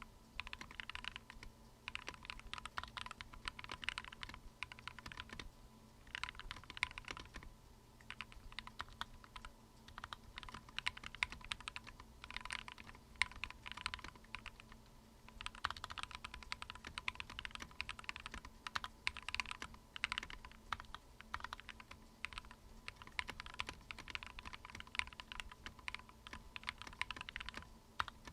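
Mechanical keyboard fitted with Akko Matcha switches being typed on, with rapid key clicks and clacks in bursts of a few seconds and short pauses between them.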